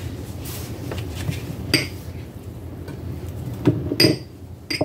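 Small glass bowls being picked up and set down on a counter: a few light clinks and knocks with a short ring, one about two seconds in and a cluster near the end.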